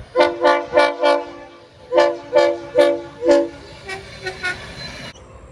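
Locomotive air horn sounding two quick sets of four short toots, followed by a few fainter toots. The sound cuts off sharply near the end.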